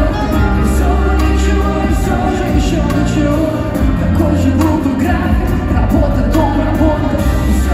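Live pop music through an arena sound system, heard from the stands: heavy bass, a drumbeat and singing.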